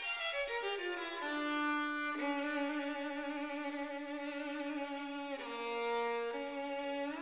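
Classical background music led by a violin: a quick falling run of notes, then a slow melody of long held notes with vibrato.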